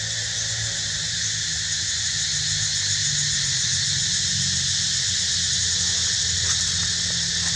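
Cicadas droning steadily in a dense, shimmering chorus, over a low steady hum.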